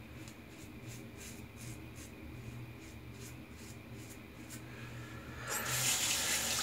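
Short, soft scraping strokes of a wet shave, about two a second, then a water tap turned on about five and a half seconds in and left running.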